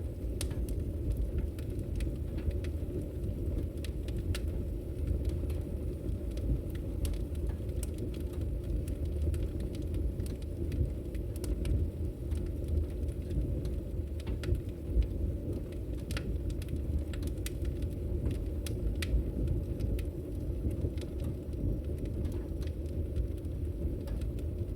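Wood fire burning in a fireplace: a steady low rumble of the flames with scattered sharp crackles and pops from the burning wood.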